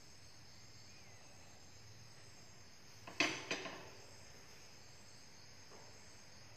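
Two quick clinks of kitchenware about three seconds in, each ringing briefly, over a faint steady high-pitched background drone.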